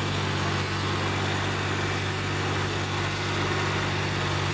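Tractor diesel engine running steadily at an unchanging pitch while hauling a loaded trolley stuck in deep mud.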